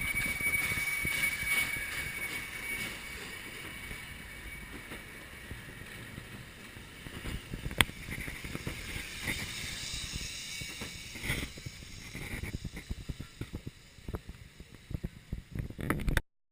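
Train hauled by a PKP Ol49 steam locomotive running past and moving away: low rumble and rail noise fading over the first several seconds, with a steady high squeal that dies away early. A single sharp click about eight seconds in, and the sound cuts off just before the end.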